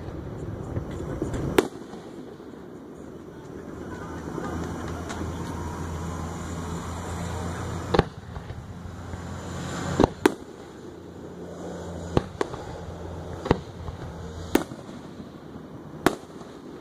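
Aerial firework shells bursting overhead: about eight sharp bangs at uneven intervals, two in quick succession about ten seconds in. A low steady hum runs beneath them through the middle stretch.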